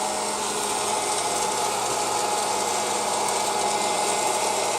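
West Bend Air Crazy hot-air popcorn popper running: its fan motor whirs steadily, blowing hot air through the kernels while they heat up before any have popped.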